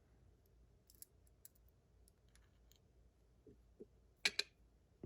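Faint small metallic clicks and ticks from the parts of a Miwa magnetic cam lock being handled and taken apart, with a louder double click about four seconds in.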